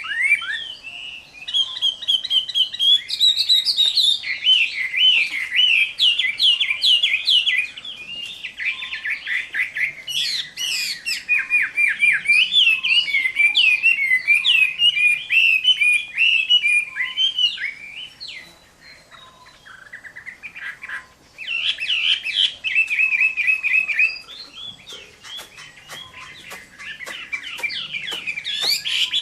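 Chinese hwamei singing loudly in full fighting song: a long, varied stream of rapid repeated notes, sweeping whistles and trills, breaking off briefly about two-thirds through before starting again.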